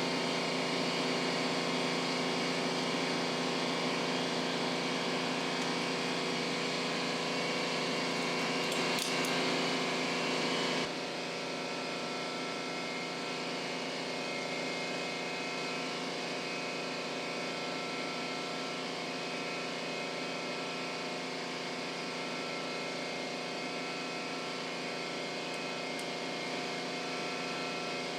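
Steady mechanical hum made of several steady tones, with a brief click about nine seconds in. About eleven seconds in it drops a little in level and changes slightly in tone.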